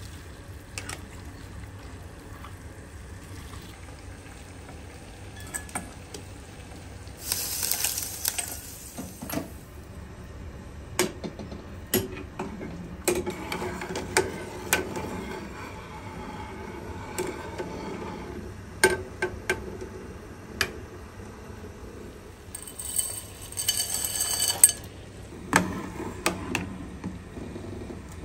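Cooking at a pot of water: utensils knocking and clinking against a ceramic-coated pot, with water sloshing as food is stirred and ladled. Two brief hissing rushes of water come about 8 seconds in and again near the end.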